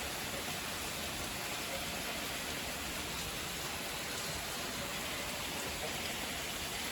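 Heavy rain pouring down steadily, an even, unbroken rush of noise.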